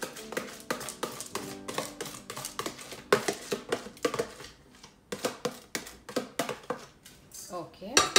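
Dry rice being poured from a plastic container into a rice cooker's pot: a dense, irregular rattle of grains, with a louder clatter near the end. Background music plays underneath.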